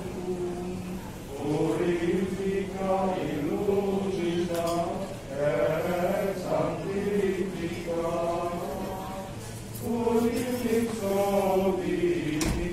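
A group of voices reciting a prayer together in a chant-like unison, in phrases of a few seconds each with brief pauses between.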